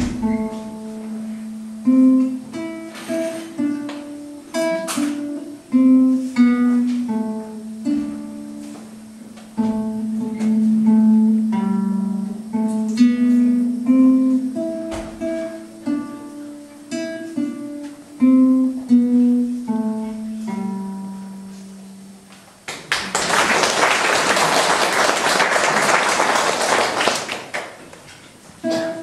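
Acoustic guitar played note by note, a plucked melody over lower notes, until the piece fades out about three-quarters of the way through. About four seconds of applause follow, and the guitar starts again right at the end.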